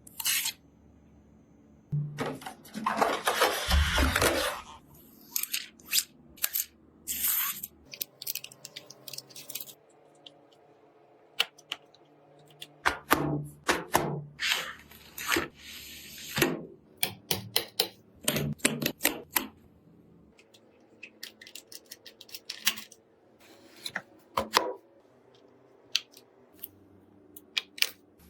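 Irregular clicks, taps and clatter of hard plastic and metal PC parts being handled and fitted during a gaming PC assembly, with short stretches of rustling.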